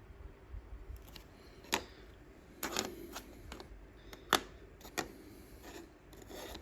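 Scattered small clicks and taps, about five or six at irregular intervals, from handling small plastic models and painting tools on a hobby desk. The sharpest tap comes about four seconds in.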